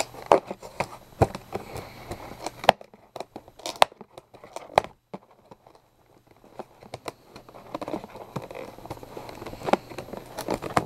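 Cardboard box being torn open by hand: a string of sharp rips, crackles and crinkles, with a short quiet pause about halfway through.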